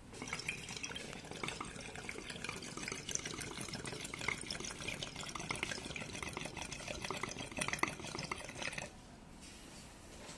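Water bubbling inside a glass juice-box dab rig as air is drawn through it by mouth. It starts at once and stops abruptly about nine seconds in.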